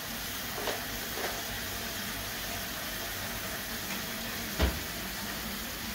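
Pan of gilbaka fish pieces cooking on a gas stove: a steady sizzling hiss. A single dull thump about four and a half seconds in.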